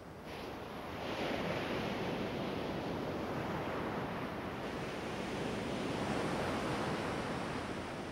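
Ocean surf breaking on a beach: a steady rush of waves that grows louder about a second in.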